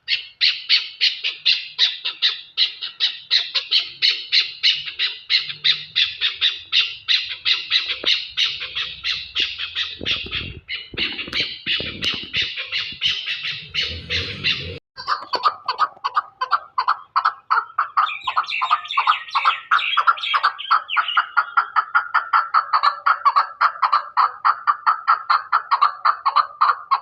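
Birds calling in a fast, unbroken series of harsh notes, several a second. About halfway through the calls change abruptly to a lower-pitched series, with a low rumble just before the change.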